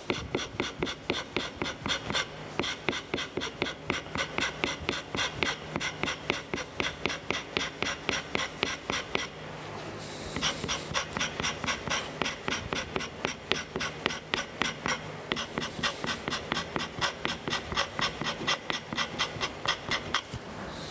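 Hand scraper draw-scraping the soft Turcite wear strip on a Monarch lathe cross slide's underside: quick, even scraping strokes, about three a second, with a short break about nine seconds in. The strokes take down the high spots shown by bluing, to bring the strip into contact with the saddle.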